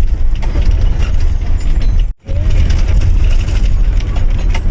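Bus engine and drivetrain rumbling steadily inside a KSRTC Leyland bus cabin, with clicking and rattling from the cabin fittings and gearbox area. The sound breaks off for a moment about two seconds in.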